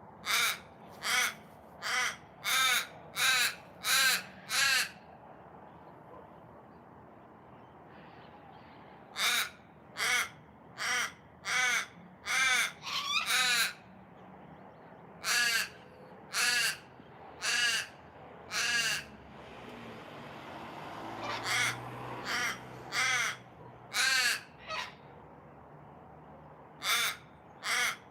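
A raven calling in runs of harsh, drawn-out caws, four to seven in a row, with pauses of a few seconds between runs; one call about halfway through is longer and wavering.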